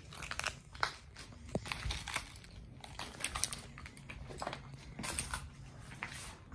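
Footsteps crunching irregularly over debris on the floor: broken plaster, ceiling tiles and scattered rubble.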